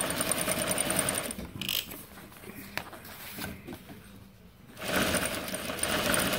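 Juki high-shank industrial sewing machine stitching denim: it runs at speed, stops about a second and a half in, with a few light clicks during the pause, and starts sewing again near five seconds.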